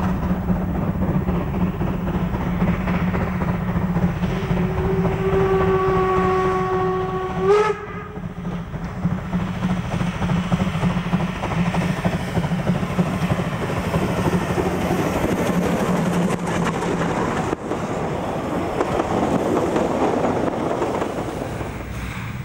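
Narrow-gauge steam locomotive running toward the microphone under steam. About four and a half seconds in, it gives one blast on its steam whistle, held about three seconds, which rises slightly and then cuts off. The train's running sound continues steadily after the whistle.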